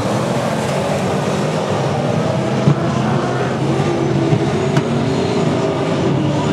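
Several speedway saloon race car engines running together as the cars race around a dirt oval, their engine notes overlapping and rising and falling as they lap. A couple of short, sharp clicks are heard partway through.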